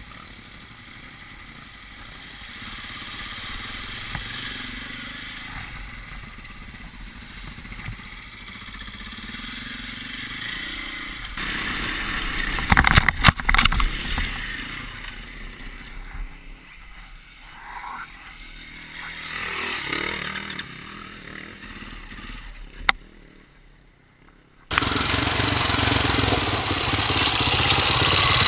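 Off-road motorcycle riding heard in several cut-together clips: a dirt bike's engine running, with a cluster of sharp knocks about halfway through. A single sharp click follows, and then a loud steady rushing noise starts suddenly a few seconds before the end.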